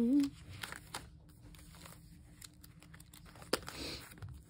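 Paper and sticker sheets rustling and crinkling as they are leafed through, in short scattered rustles and light ticks, with a louder rustle about three and a half seconds in.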